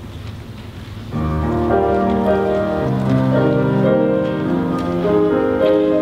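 A mixed choir comes in together about a second in and sings held chords that shift note by note, after a moment of quiet hall noise.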